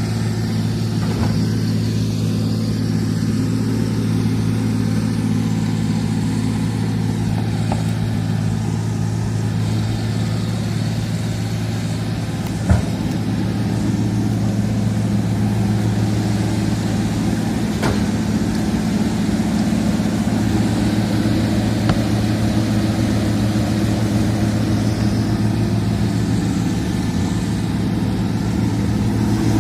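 Excavator's diesel engine running steadily, with a few sharp knocks, the loudest about halfway through.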